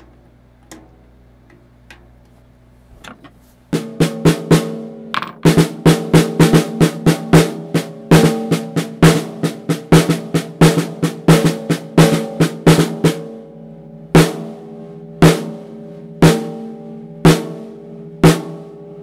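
Mapex Armory Exterminator 14x6.5 birch/walnut snare drum struck with sticks to check its tuning after the top-head tension has been evened out. A few faint taps, then from about four seconds in a fast run of strokes lasting about nine seconds, then single ringing hits about one a second.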